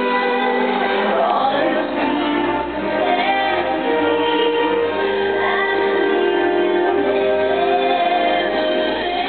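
Light-show soundtrack music with a choir and voices singing long, held notes.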